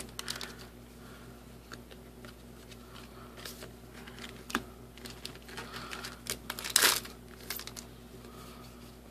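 Foil booster packs crinkling and trading cards being handled, a scatter of soft crackles and clicks with one louder crinkle about seven seconds in, over a faint steady hum.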